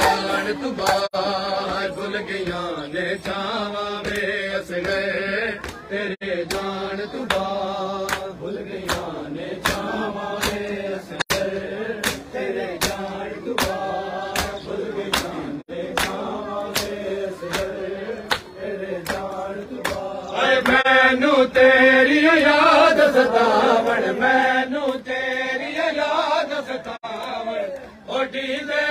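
Crowd of mourners chanting a noha lament together while beating their chests with open hands in time. The sharp slaps fall in a steady rhythm, roughly three every two seconds. The chanting gets louder about two-thirds of the way through.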